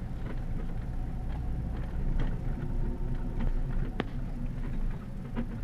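Pickup truck rolling slowly, heard from inside the cab: a steady low engine and road rumble, with one sharp click about four seconds in.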